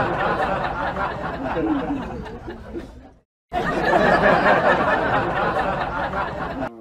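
Many people laughing and chattering in a dense mix of voices. It breaks off for a moment about three seconds in and then starts over.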